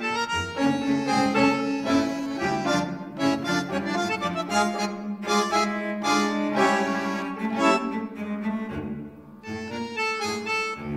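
Background music: an instrumental melody of sustained notes, with a brief lull about nine seconds in.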